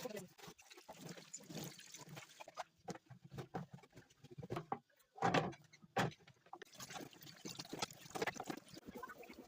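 Irregular household cleaning sounds with water: splashes, wiping and rubbing, and a few louder knocks about halfway through as things are handled and set down.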